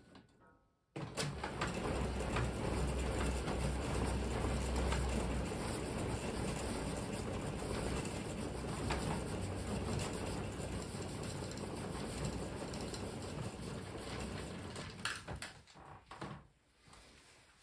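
Player piano rewinding its paper music roll: the roll mechanism and suction pump run with a steady mechanical whir, starting suddenly about a second in and dying away after a click about fifteen seconds in.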